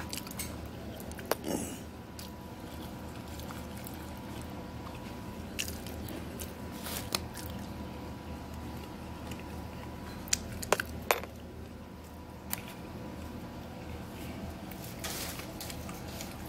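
Plastic fork scraping and tapping in a foam takeout container of rice, a few scattered short clicks, the sharpest two close together a little past the middle, over a steady background hum.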